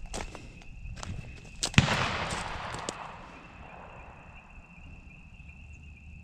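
A single shotgun blast about two seconds in, close and loud, its report rolling away and fading over about a second. It is the shot taken at a doe, which those present judge a kill shot.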